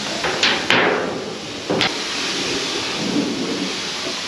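A quick run of three sharp metal clanks in the first second, then one more near two seconds, from a curved steel patch plate and ratchet straps being handled against a grain cart's auger tube. A steady rushing noise runs underneath.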